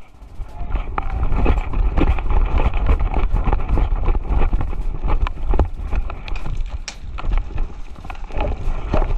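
Irregular crunching footsteps and gear rustle from a player moving on foot, over a heavy low rumble of wind and handling noise on a body-worn camera microphone.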